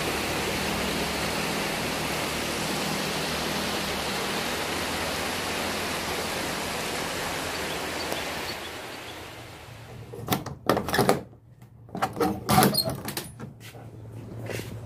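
A steady, even hiss-like noise fades away about nine seconds in. It is followed by a handful of short, irregular knocks and rustles.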